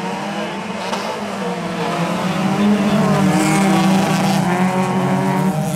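Several folkrace cars accelerating hard together, a pack of engines revving at once, growing louder over the first three seconds and then holding steady.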